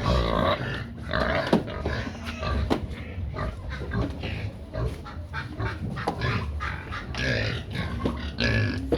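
Several pigs squealing and grunting without a break, clamouring for feed, with a few sharp knocks among the calls.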